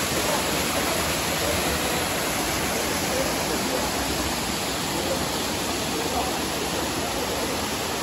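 Steady rushing of a waterfall, white water pouring and churning over rocks into a fast stream.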